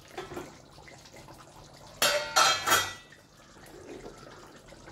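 Metal kitchenware clattering briefly: about three quick ringing knocks in a row, about two seconds in, against a low steady background.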